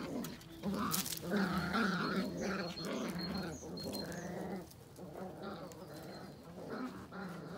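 Puppies growling and whining in a run of short pitched calls, louder in the first half and softer after about four and a half seconds.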